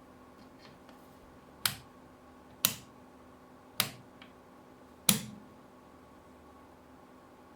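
Four sharp clicks, roughly a second apart, from a small rechargeable lamp's push-button switch being pressed.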